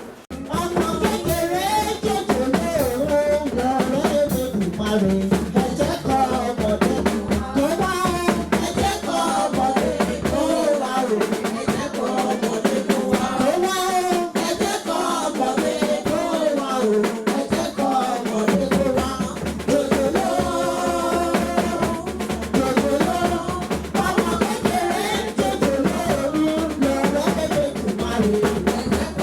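Music with a drum kit beat and singing, starting suddenly; the deep bass drops out for several seconds in the middle and then returns.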